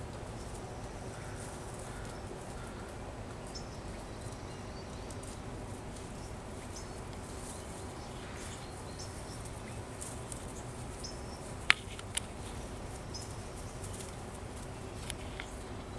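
Outdoor ambience: a steady low rumble with faint scattered high chirps and ticks, and two sharp clicks close together about three-quarters of the way through.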